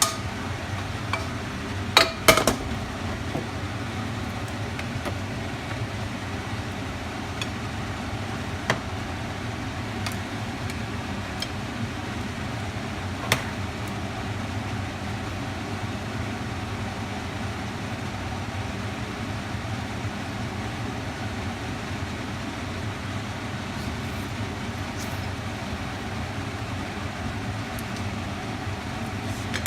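Steady fan-like hum with a low drone, broken by a few sharp clinks of utensils or dishes, the loudest about two seconds in.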